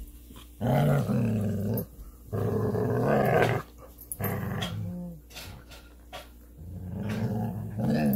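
Two dogs growling in play as they tug on a rope toy together. The growls come in four low spells of about a second each with short pauses between, the third one quieter.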